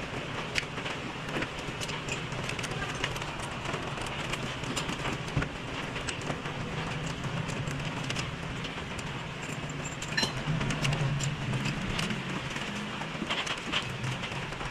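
Scattered light metallic clicks and clinks of hand tools on engine parts, over a steady low background hum.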